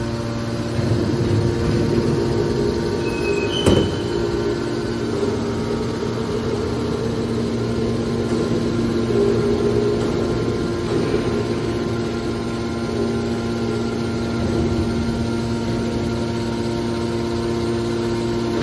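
Hydraulic power unit of a metal baler running: the electric motor and hydraulic pump give a steady hum with a few held tones. A single sharp knock comes about four seconds in.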